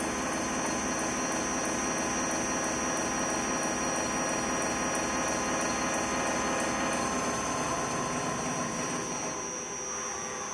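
Large gear-cutting machine running steadily as its spindle-mounted cutter machines the teeth of a big ring gear: a steady mechanical hum with a thin high whine, easing slightly near the end.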